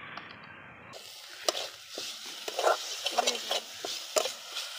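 Steel spatula stirring and scraping a coconut and date-palm jaggery filling around a steel karahi, over a steady sizzle as the filling cooks down. The scrapes and knocks come irregularly, starting about a second in.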